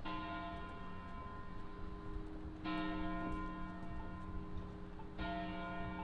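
A large tower bell tolling: three strokes about two and a half seconds apart, each ringing on long after it is struck.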